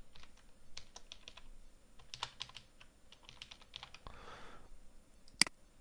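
Computer keyboard typing in irregular clicks, with one sharp, louder click near the end.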